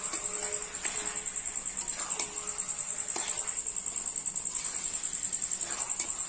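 A spatula scrapes and knocks against an aluminium kadai several times as chicken is stirred in thick masala while it fries down. A steady, high insect trill runs behind it.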